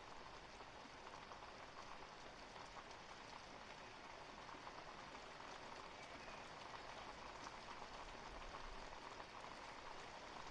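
Steady rain falling: an even, faint hiss flecked with the patter of individual drops.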